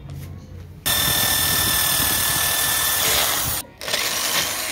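Corded electric drill with a step bit drilling into a steel motorcycle handlebar. The motor starts about a second in and runs steadily with a high whine, cuts out for a moment about three and a half seconds in, then starts again.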